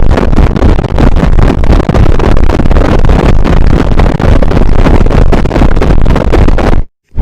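Cartoon snoring sound effect, boosted until it is heavily distorted into a very loud, harsh noise. It cuts to silence briefly just before the end.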